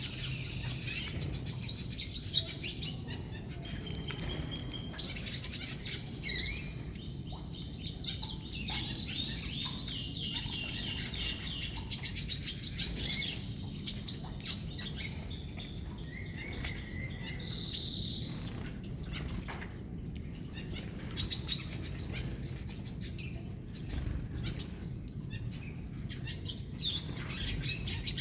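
Gouldian finches chirping and calling, many short high notes overlapping throughout, over a steady low background rumble.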